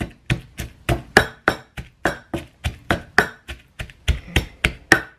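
Wooden pestle pounding roasted sesame, chilies, garlic and shallots in a clay mortar to make a chili paste, a steady rhythm of strokes about three a second.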